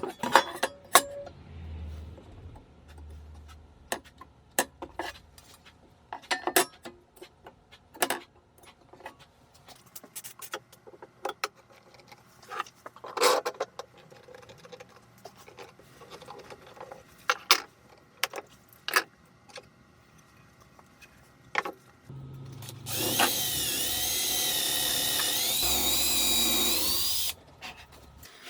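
Scattered knocks and clicks of wood pieces and tools being handled, then about five seconds of a handheld power drill running under load, its pitch wavering, until it cuts off suddenly.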